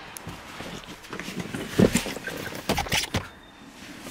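Knocks, bumps and rustling as someone climbs into a car's driver's seat, with one sharp thump about two seconds in and a few more clunks near the end.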